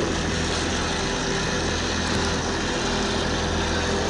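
Traxxas TRX4 1:10 scale RC crawler's electric motor and geared drivetrain running steadily under drive, with no rise or fall in pitch.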